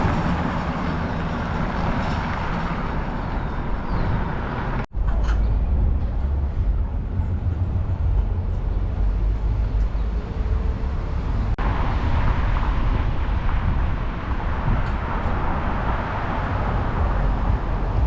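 City street traffic: a steady rumble of passing cars and larger vehicles. It changes abruptly at about five seconds and again near twelve.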